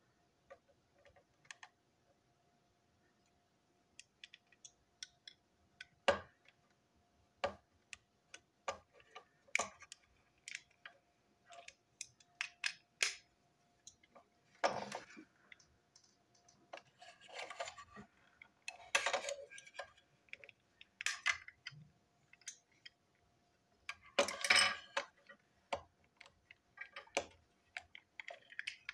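Small plastic and metal parts of a toy train engine being handled and fitted together by hand: scattered sharp clicks and taps, with a few short scraping rustles around the middle and about three-quarters of the way through.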